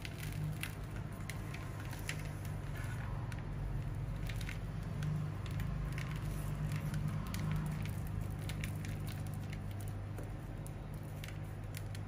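Gritty potting mix of volcanic rock and perlite being crumbled by hand off a tightly packed root ball, small pieces crackling and pattering into a plastic basin in scattered clicks. A steady low hum runs underneath.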